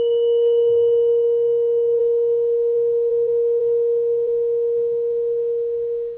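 Tuning fork ringing with a steady, pure mid-pitched tone after being struck. A faint higher overtone dies away in the first couple of seconds, and the tone then cuts off abruptly at the end.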